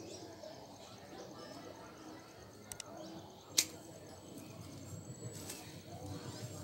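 Hand pruning shears snipping through thin acerola branches: one sharp click a little past halfway, with a fainter double click just before it.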